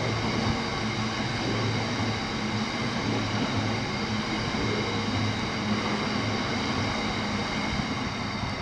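Grey box wagons of a freight train rolling past at speed: a steady rumble of steel wheels on rail with a low pulse about once a second and a faint, steady, high-pitched ringing above it.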